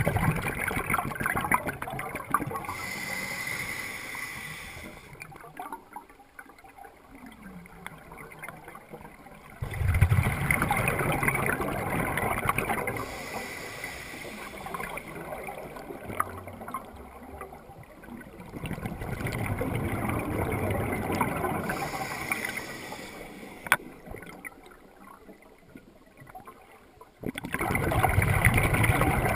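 Water sloshing and gurgling, in several stretches that change abruptly from one to the next.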